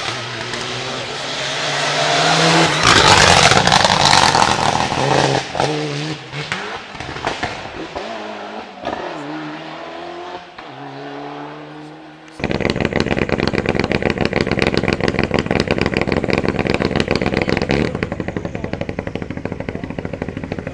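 A rally car approaches and passes flat out, loudest about three seconds in, then accelerates away, its engine climbing through several gear changes as it fades. About twelve seconds in the sound cuts abruptly to a loud engine close by, running with a steady rapid pulse.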